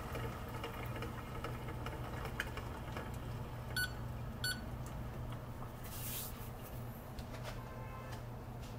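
Two short electronic beeps from a coffee scale about four seconds in, as its button is pressed, over a steady low hum. A brief hiss follows about two seconds later.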